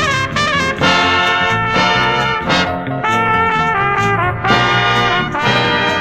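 Instrumental brass music played from a vinyl record: a trumpet leading a brass section over a rhythm backing, in held notes that change every second or so.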